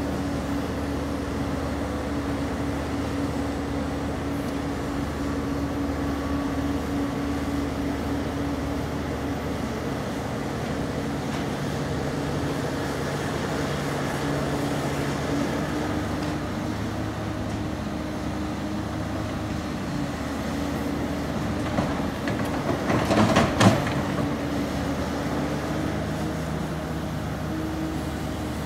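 Komatsu PC340 long-reach hydraulic excavator's diesel engine running steadily as it works the boom, with a steady hum whose pitch shifts slightly a few times. A short burst of clattering knocks about three-quarters of the way through is the loudest moment.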